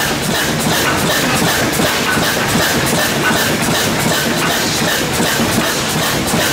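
Antique stationary engine with a large flywheel running steadily and driving a 1905 DC generator, a continuous rhythmic mechanical clatter.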